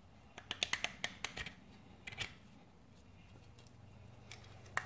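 Light metallic clicks from small 4L60E servo parts being handled and test-fitted: a quick run of about eight clicks in the first second and a half, then single clicks about two seconds in and near the end.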